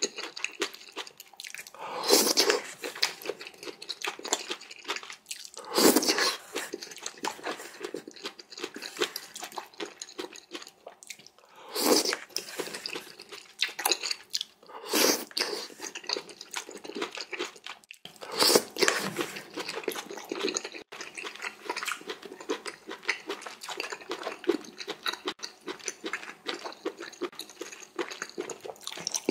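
A person eating jjamppong noodle soup close to the microphone: wet chewing and crunching of noodles and crisp bean sprouts, with about five louder bursts spread through.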